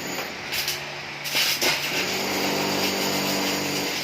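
Electric arc welding on steel channel: a steady crackling hiss of the arc, filling in about a second in, with a low steady hum joining it in the middle.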